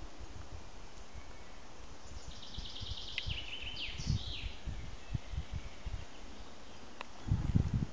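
A songbird sings one short song of fast repeated high notes that step down and end in a quick flourish, about two seconds in, over a steady woodland hiss. Low thumps on the microphone come and go, loudest near the end.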